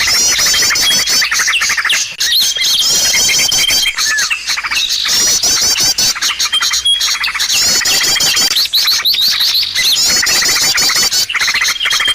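Dense, loud chorus of small birds chirping and trilling rapidly, a bird-luring call recording. Similar runs of chirps, each with a held high whistle, come back every few seconds.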